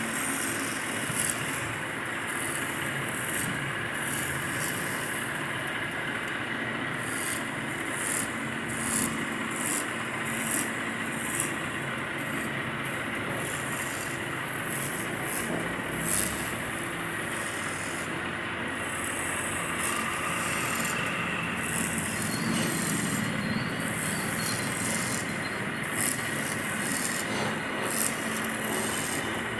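Wood lathe running with a steady hum, while a tool or abrasive rubs and scrapes against the spinning wood in uneven strokes.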